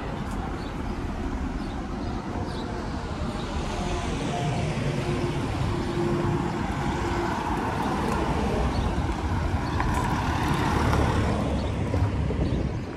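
Cars and a van driving past close by on a street, with engine and tyre noise that swells over several seconds, is loudest shortly before the end, then falls away.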